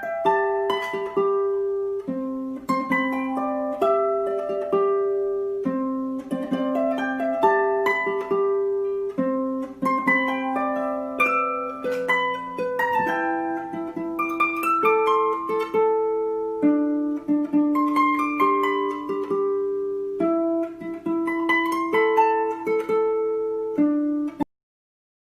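Instrumental music: a plucked-string melody over a slower line of lower notes. It cuts off suddenly near the end.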